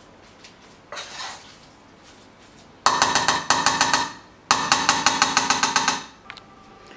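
Metal spoon clattering against a stainless steel pot in two quick runs of rapid, ringing knocks, about eight a second, with a short pause between them. A brief scrape comes about a second in.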